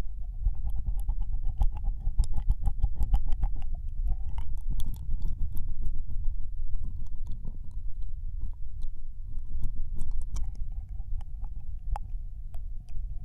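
Close-up ear licking into a binaural microphone: many irregular wet mouth clicks and smacks over a deep rubbing rumble from contact with the mic's ear.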